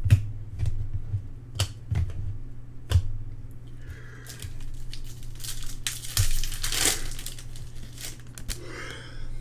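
Crinkling and tearing of a trading-card pack wrapper. It is preceded by a few light clicks and taps from cards being handled, and the crinkling is loudest about six to seven seconds in. A steady low hum runs underneath.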